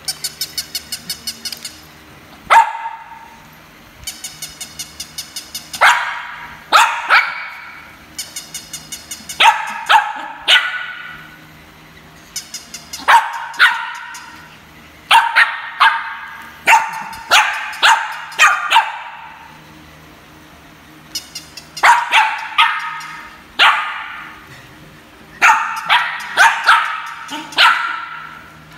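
Shih Tzu barking at a battery-operated walking plush toy dog, in sharp single barks and quick clusters. In between, the toy gives out runs of rapid, evenly spaced electronic yaps, about eight a second.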